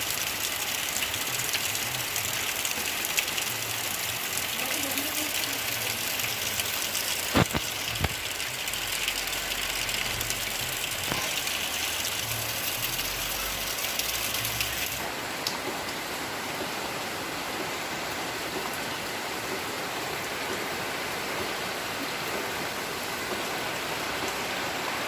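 Steady monsoon rain falling, an even hiss. Two sharp knocks come about a third of the way in, and a little past halfway the rain turns duller and slightly softer.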